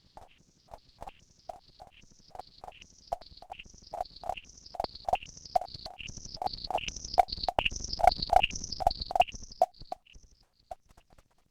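Electronic patch from a modular synth fed through a PT2399 digital delay: a rhythmic train of short clicky pulses, each with a pitched blip and a high falling chirp, about two or three a second. The train swells louder, then thins out and stops a little before the end.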